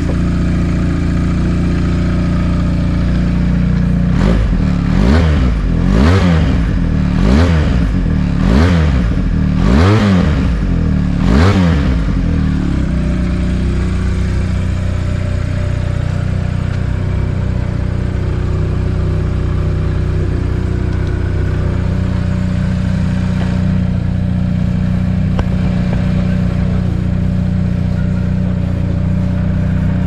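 Factory Kenni 400 sport motorcycle engine idling, then revved in about six quick throttle blips that rise and fall, before settling back to a steady idle.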